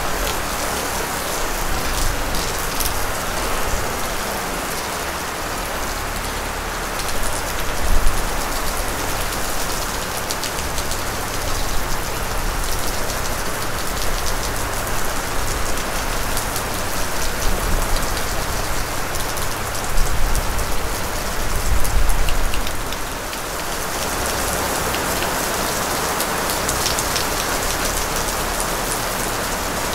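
Rain falling steadily, with a few louder low swells about eight seconds in and again around twenty and twenty-two seconds.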